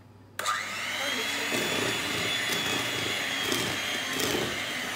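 Electric hand mixer switched on about half a second in, its motor whine rising quickly and then running steadily as the beaters mix cake batter in a bowl.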